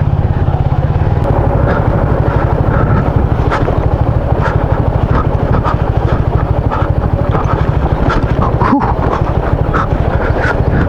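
Motorcycle engine running steadily while riding a rough dirt road, its firing pulses even throughout, with wind noise and scattered small clicks and rattles from the ride.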